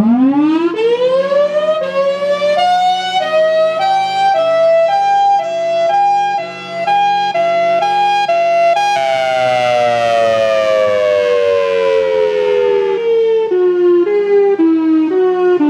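Outdoor warning siren winding up from low pitch to full tone over about two seconds. It then holds there with a pulsing two-note alternation about twice a second, then glides slowly down in a wail and begins to rise again near the end.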